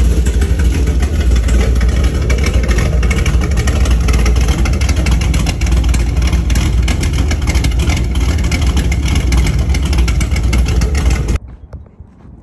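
5th-gen Camaro SS's LS3 V8, fitted with a Stage 3 cam, long-tube headers and NPP exhaust, running steadily. The engine sound cuts off abruptly near the end.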